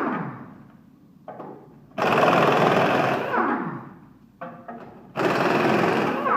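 Impact wrench hammering in two bursts of about a second and a half each, each winding down with a falling whine as the tool is let go. A few short knocks come between the bursts.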